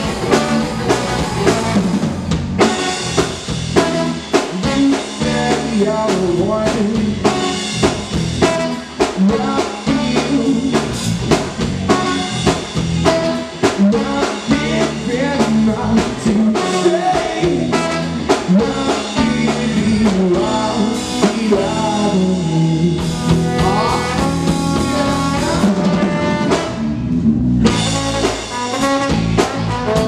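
Live band playing an instrumental passage: trombone, electric guitar, electric bass and drum kit, with a steady drum beat.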